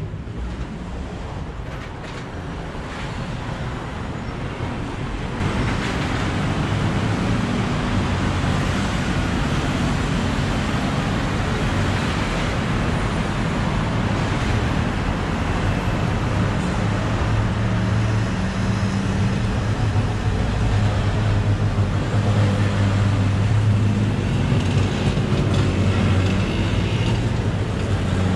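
City street traffic: a steady wash of passing vehicles with the low hum of running engines, growing louder about five seconds in.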